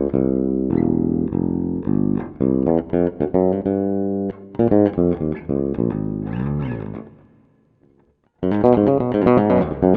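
Passive Strinberg electric bass with Malagoli pickups played solo through an amp, a groove of plucked notes with a few sliding ones. The playing breaks off about seven seconds in for about a second, then picks up again.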